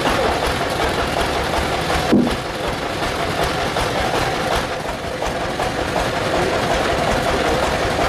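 Engine-driven sawmill machinery running steadily, with one sharp knock about two seconds in.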